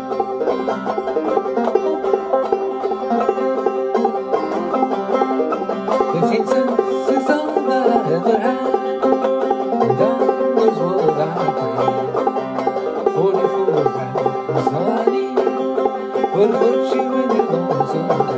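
Banjo played clawhammer style: a steady, unbroken run of picked and brushed notes in an old-time tune.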